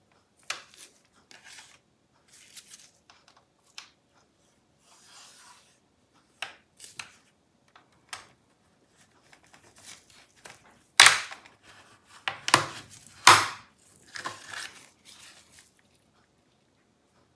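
Plastic clips of an Alienware 16X Aurora's bottom panel popping loose as a plastic pry tool works along the rear edge. Light scrapes and ticks come first, then three loud snaps close together a little past the middle, then softer scraping.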